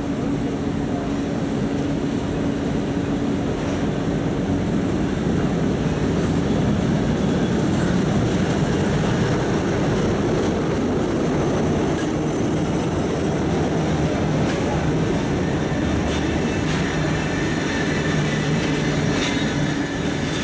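TEM18DM diesel shunting locomotive passing slowly at close range, its diesel engine running with a steady drone. In the second half its wheels click over the rail joints as the baggage cars roll by, with a faint high squeal near the end.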